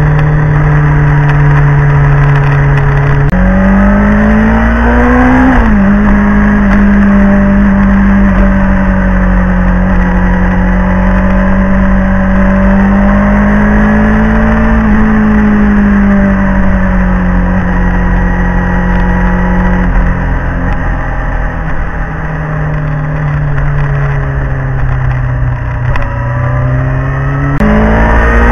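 Sport motorcycle engine heard from a camera mounted low on the bike, running at cruising revs under a heavy rush of wind. About three seconds in the engine note jumps up and climbs for a couple of seconds, then drops back. After that it holds fairly steady and eases off, and near the end it jumps up sharply again.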